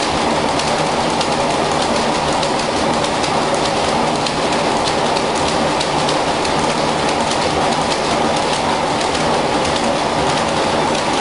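Steam-driven textile mill machinery running: a loud, steady, dense clatter of many rapid, irregular clicks with no let-up.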